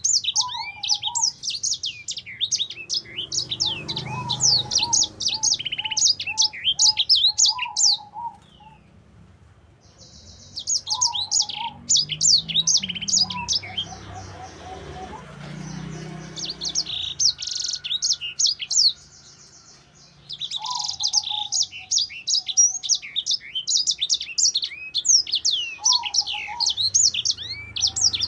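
A caged sanger songbird singing a long, rapid twittering song of quick high, falling notes mixed with lower chirps. The song breaks off twice, for a second or two each time.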